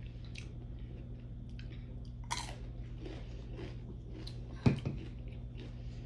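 Close-miked chewing of Doritos tortilla chips dressed with hot sauce and sour cream: scattered crisp crunches, one louder crunch a little past a third of the way in, and a single heavier thump about three-quarters through, over a steady low hum.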